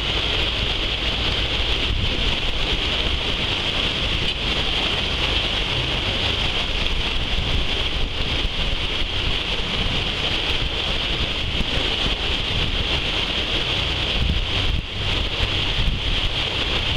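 Steady rushing of water churned up in a moving boat's wake, with a low rumble underneath.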